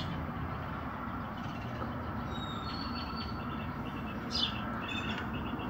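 A steady low rumble with a few short bird chirps around the middle and near the end.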